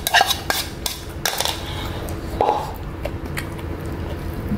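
A few clinks and knocks of a bowl against an enamel plate as rice is tipped out of it, all within the first second and a half.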